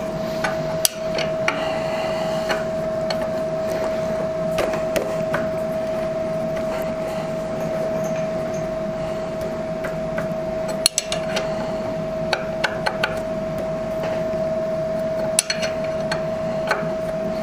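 Scattered metallic clinks and taps of a wrench working on a motorcycle's oil drain plug, with a steady hum underneath throughout.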